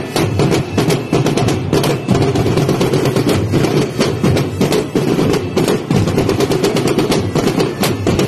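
Marching drum line playing a fast, dense stream of strokes, with sticks on marching tenor drums, steady and loud with no let-up.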